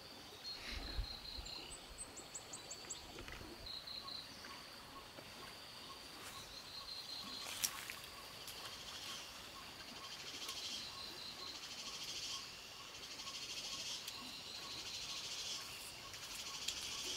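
Chorus of crickets and other insects: a steady high buzz broken into pulsed chirps, with a regular soft ticking call joining about six seconds in. One sharp click about seven and a half seconds in and a dull low thump about a second in.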